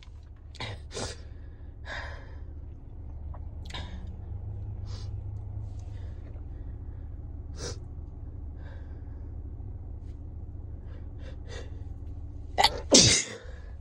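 A person with a head cold sniffling and catching their breath in short gasps, then sneezing hard near the end: a quick sharp intake followed by the loud sneeze itself.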